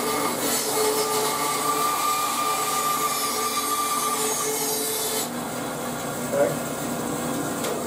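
Bandsaw cutting through a glued-up pine and mahogany inlay block to take off the excess plug: a steady hiss of the blade in the wood with a held whine. The cut ends about five seconds in and the saw keeps running, with one brief sharp sound a little later.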